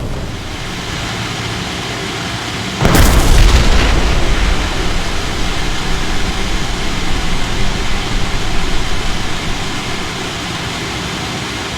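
Large explosions at sea: the rumble of one blast trails off, then a second blast breaks in suddenly about three seconds in, followed by a long rolling rumble that eases off near the end.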